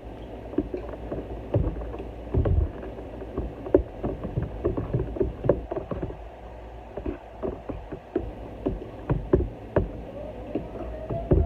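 Kitchen clatter: irregular knocks and clicks of utensils and dishes being handled while cooking.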